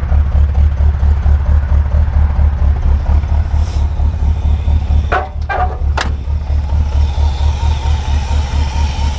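Pontiac 350 V8 idling steadily with an even pulse after ignition work, which the owner says is running too rich. A few sharp clicks come about five to six seconds in.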